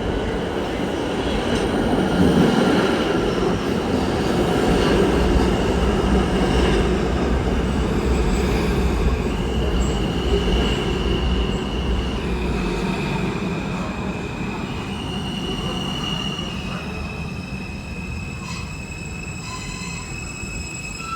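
New York City subway train running on the rails with a heavy low rumble that eases off about halfway through. From about the middle on, the wheels squeal in long high-pitched tones that shift in pitch.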